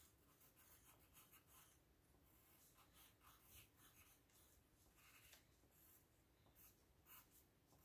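Faint pencil strokes on paper: short, irregular scratches as the fluffy neck fur of a drawing is sketched in.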